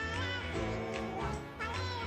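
Background music: an upbeat pop song with a singing voice over a steady bass line.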